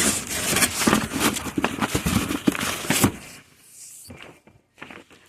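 Rustling and knocking of packaging and parts being handled, dense for about three seconds, then a few scattered clicks.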